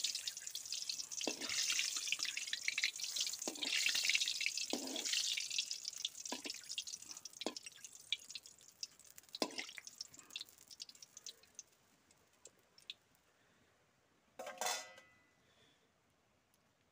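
Whole seeds crackling and popping in hot oil in a karahi, a dense sizzle with sharp pops that fades away over about ten seconds. One brief, louder sound comes near the end.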